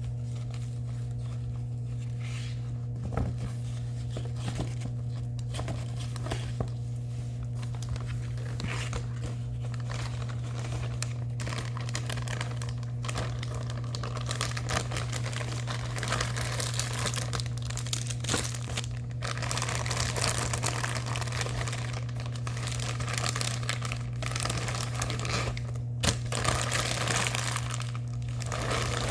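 Plastic packaging of a diamond-painting kit crinkling and rustling as it is unwrapped and handled, getting busier about halfway through, with a few sharp crackles. A steady low hum runs underneath.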